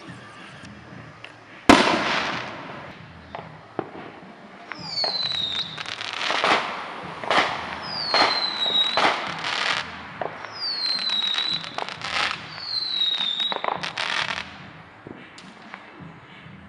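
Fireworks going off: one loud bang about two seconds in, then a run of bangs and crackling mixed with four whistles that slide down in pitch.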